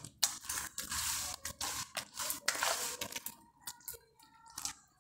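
Wet, grainy grated-soap mixture being stirred and worked in a plastic bowl: a quick, irregular run of scraping, crunching strokes that thins out after about three seconds.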